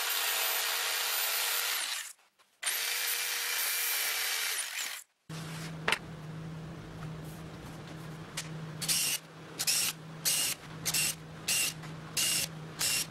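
Corded jigsaw cutting through two stacked sheets of 18 mm pine plywood: it runs steadily for about two seconds, stops briefly, then cuts for another two and a half seconds. From about halfway through, a cordless drill runs in a string of short bursts, driving screws into plywood.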